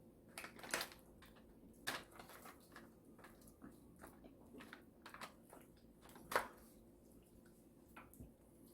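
Close-miked eating sounds: chewing and biting into fried chicken, with scattered short crunches and clicks, the loudest about six seconds in.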